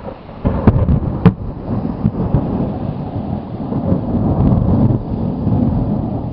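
Thunder from a close lightning strike: a few sharp cracks about half a second to a second and a half in, then a long low rumble that swells and slowly fades.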